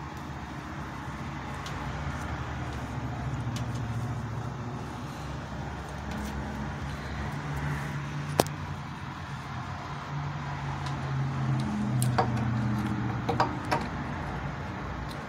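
Steady low background rumble, with a single sharp click partway through and a cluster of clicks and taps near the end as a chrome bathtub drain stopper is handled and pressed back into the drain.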